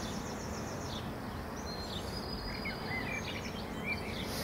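Steady outdoor background noise with small birds singing: a rapid trill in the first second, then a run of short chirps and whistled phrases from about halfway through.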